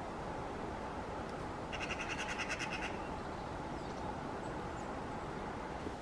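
A bird's rapid trill of about a dozen quick, evenly spaced notes lasting about a second, starting a little under two seconds in, over steady background noise.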